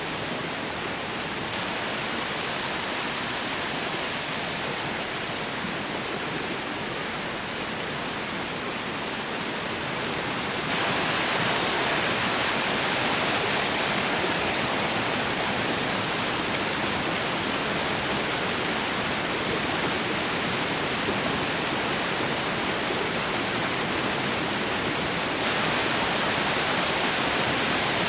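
Waterfall rushing: a steady, even roar of falling water, louder from about eleven seconds in.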